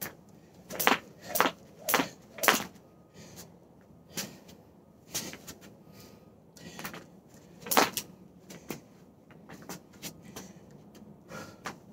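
Jump rope session on a wooden porch deck: sharp slaps of the rope and feet landing, four about half a second apart near the start, then scattered single strikes with pauses between short runs.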